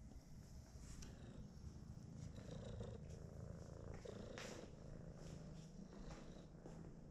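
A domestic cat purring close to the microphone: a faint, steady low rumble, with a soft click about four and a half seconds in.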